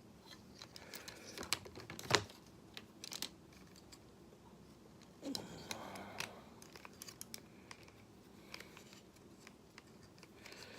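Plastic parts of a Studio Series Voyager Starscream Transformers figure clicking and snapping as they are folded and pegged together during transformation to jet mode: irregular light clicks, with one sharper snap about two seconds in.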